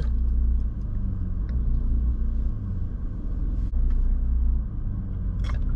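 Car engine idling, a steady low rumble heard from inside the cabin, with a few faint clicks.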